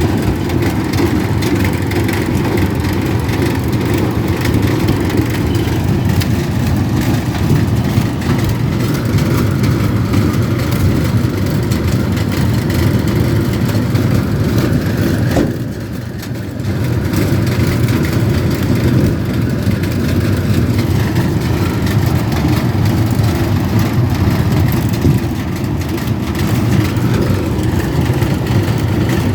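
Tractor engine running steadily under load, driving a two-row corn picker through the corn: a continuous heavy mechanical drone that dips briefly about halfway through.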